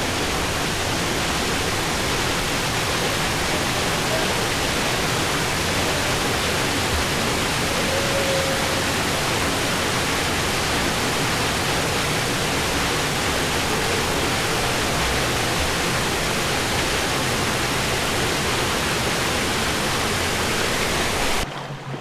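Steady rush of falling water from a waterfall, an even hiss with no let-up, cutting off abruptly near the end.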